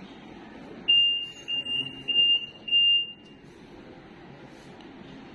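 Ventilator alarm beeping: a single high tone pulsing about four times over some two seconds, then stopping.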